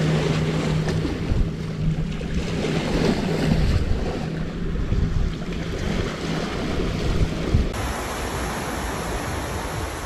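Small waves washing onto a rocky, pebbly shore, with wind buffeting the microphone. A steady low hum runs under the surf and stops about three-quarters of the way through.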